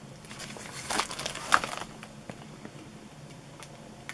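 Crinkling and rustling of a firework cake box's glossy packaging as it is handled, lasting about a second and a half, followed by a few light clicks.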